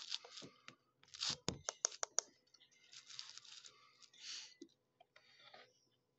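Close-up handling noise at a phone's microphone: short hissing rustles, with a quick run of about five sharp clicks around two seconds in.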